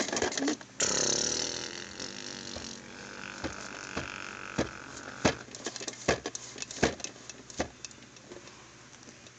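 Hands handling plastic toys close to the microphone: a sudden rustle about a second in, then a string of about seven light clicks and taps, growing fainter near the end.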